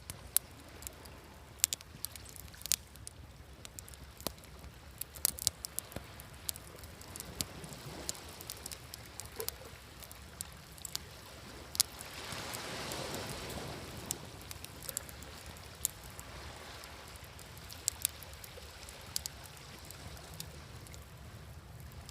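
Campfire crackling with scattered sharp pops over a low steady rumble, and a wave washing in, swelling and fading about twelve to fourteen seconds in.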